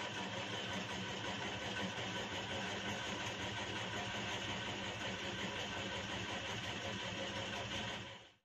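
Steady mechanical hum, engine-like, running evenly without change, then fading out near the end.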